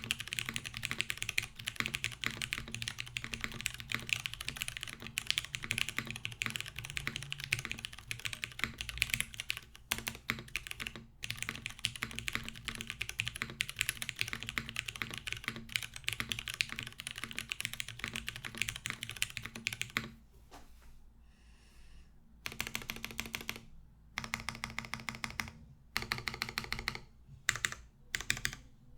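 Typing on a Noxary 280 mechanical keyboard with lubed Cherry MX Brown tactile switches on a 5mm polycarbonate plate, top mounted with no foam, under GMK keycaps: a fast, even run of key clacks. About two-thirds of the way through the typing stops for a couple of seconds, then comes back in short bursts with brief pauses between them.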